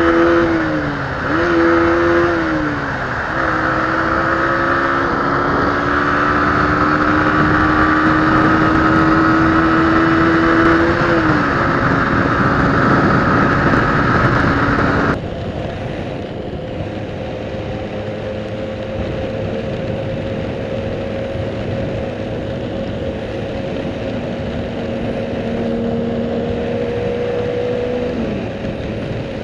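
Honda CG125's single-cylinder engine running at motorway speed under a heavy rush of wind and rain noise. The engine note dips and recovers a few times. About halfway through, the whole sound suddenly drops to a quieter level.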